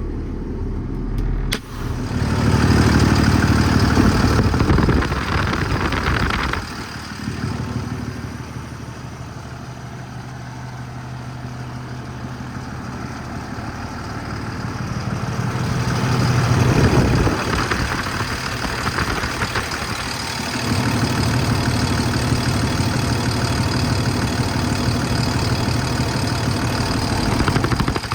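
6.7 L Cummins ISB diesel engine of an International 4400 truck running as the truck is backed up, then idling. It swells louder a couple of times and settles steady near the end, with a sharp click about a second and a half in.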